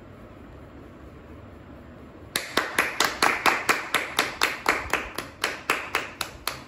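Hand clapping in a steady rhythm of about four claps a second, starting a little over two seconds in and stopping at the end.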